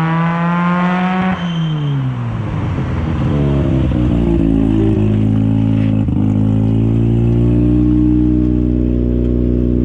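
A 1983 Mazda RX-7's 12A rotary engine under way with a loud exhaust. The revs climb, drop sharply just over a second in, then build again and settle into a steady drone.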